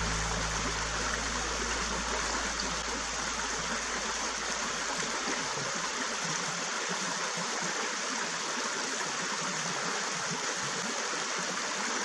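Steady rushing noise, like running water, with no clear tones or events. The tail of background music fades out over the first few seconds.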